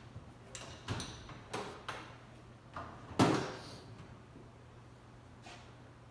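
Hand tools and small metal parts knocking and clinking as they are handled, several sharp knocks with a brief ring, the loudest a little over three seconds in.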